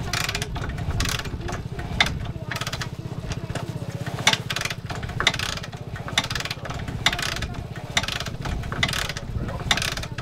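Repeated kick-starting of a Honda XR400R's single-cylinder four-stroke, about one sharp kick a second, with a steady low engine rumble underneath.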